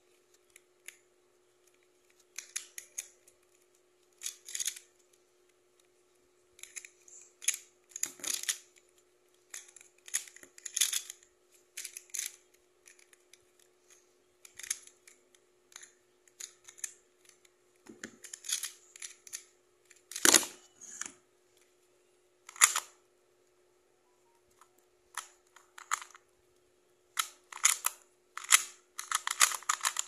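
Plastic clicking and clacking of a Pyraminx puzzle being twisted by hand, in short irregular bursts of turns with pauses between them.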